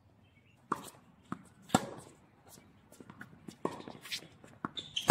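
Tennis ball being struck by racket strings and bouncing on a hard court, heard as a string of sharp hits through the rally. The loudest hit comes a little under two seconds in. Shoe scuffs and steps on the court lie between the hits.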